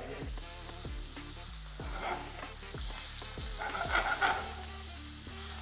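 Ribeye steak sizzling steadily in hot olive oil in a stainless steel frying pan, with garlic, thyme and rosemary in the pan.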